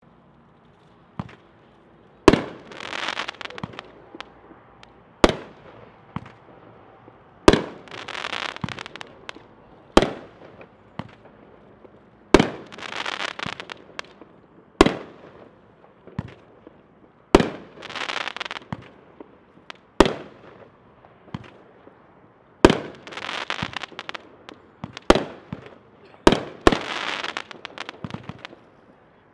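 Slam Firehawk firework going off as a string of sharp shots, about one every two and a half seconds. Many of the shots are followed by about a second of dense crackling from the bursting stars.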